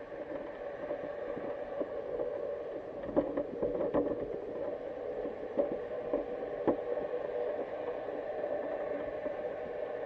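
Underwater sound picked up by a GoPro in its waterproof housing: a steady hum with a handful of scattered clicks and knocks, the loudest about three, four and six and a half seconds in.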